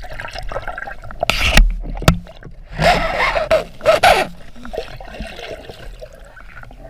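Water splashing and sloshing close to the microphone in irregular bursts, loudest about one and a half, three and four seconds in.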